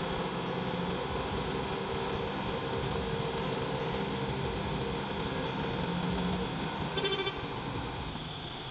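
Diesel engines of a Komatsu excavator and a logging truck running hard under heavy load, a steady engine drone over a dense mechanical noise, with a brief rattle about seven seconds in.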